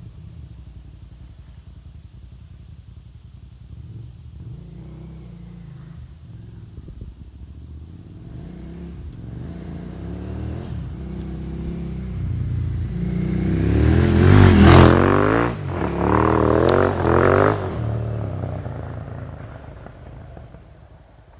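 KTM 950 Super Enduro's V-twin engine on a pass-by: the engine note builds as the bike approaches, is loudest about two-thirds of the way in with a short break in the sound, then fades away as it rides off.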